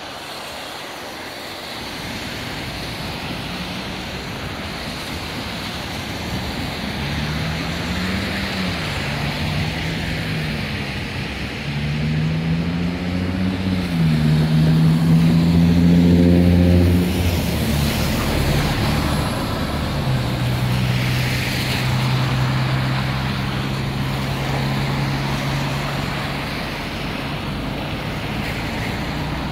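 Street traffic in the rain: a steady hiss of rain and wet road, with a vehicle engine revving up and easing off several times, its pitch rising and dropping like gear changes. It is loudest about halfway through and is followed by a lower, steady engine hum.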